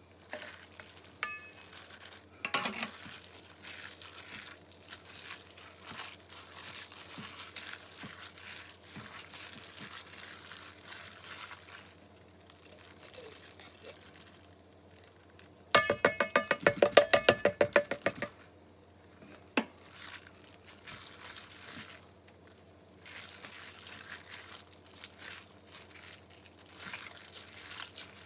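A hand in a thin plastic glove mixing marinated meat in a stainless-steel bowl, the glove crinkling as it stirs. Just past the middle comes a loud, fast rattle of about ten clicks a second lasting some two and a half seconds.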